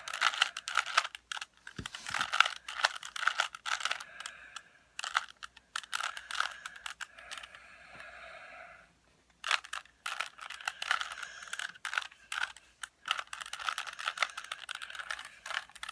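Rubik's cube being turned by hand: quick, irregular plastic clicking and clacking of the layers, with a short pause a little past halfway.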